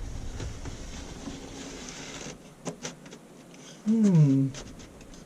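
A soft rushing sound that stops abruptly about two seconds in, then a few light plastic clicks of a caravan roof-window blind being handled. About four seconds in, a man gives a short vocal sound falling in pitch.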